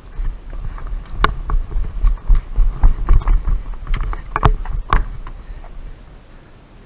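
Irregular thumps and sharp clicks over a low rumble, busiest between about one and five seconds in, then dying down.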